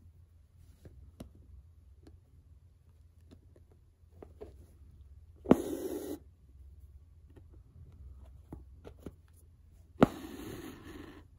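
Stranded embroidery floss being drawn through the stiff fabric of a cap in an embroidery hoop, twice: about five and ten seconds in, a sharp tick followed by a short scratchy rasp of thread pulling through. Faint small ticks and rustles of handling come between.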